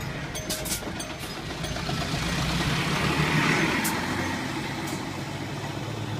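Bus engine running, with a broad swell of noise that builds through the middle and eases off, and a few sharp clicks. The last tones of a left-turn chime end within the first half-second.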